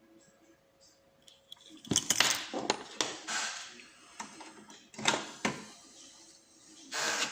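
Small metallic clinks and rattles of a padlock and its parts being handled and worked on, in a few short clusters about two, three, five and seven seconds in.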